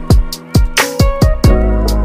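Background music with a steady beat: regular drum hits over deep bass notes that slide down in pitch, with sustained melodic tones.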